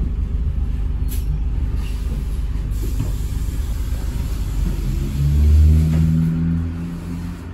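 Cabin noise of a London double-decker bus on the move: a steady low rumble of engine and road, with the engine note swelling loudly as the bus pulls harder about five seconds in and then easing off near the end.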